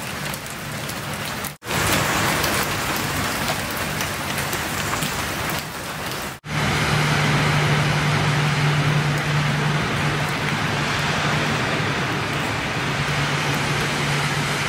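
Rain falling steadily and spattering on a wet concrete path and puddles. About six seconds in, a cut brings a louder, steadier rushing noise with a low hum underneath.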